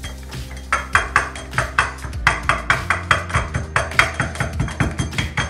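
A drinking glass tamping crushed biscuits into a metal ring mould, in quick repeated knocks about four a second, pressing down a biscuit-cake base.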